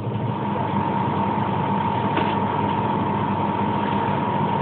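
Pesa 120Na low-floor tram standing still, its onboard electrical equipment humming steadily with a thin, high whine over a lower hum.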